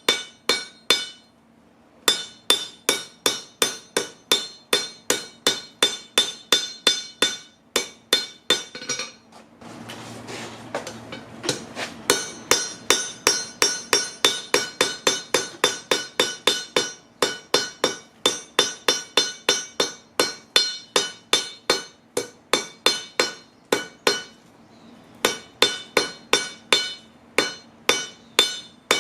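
Blacksmith's hammer striking a railroad-track anvil in a steady rhythm of about three blows a second, each blow ringing with a bright metallic tone. The hammering breaks off for a couple of seconds about a third of the way in, when a steady rushing noise with a low hum is heard, then resumes.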